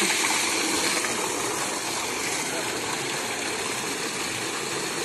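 A thick jet of water gushing steadily from an irrigation pump's outlet pipe into a concrete tank, rushing and splashing into the water below.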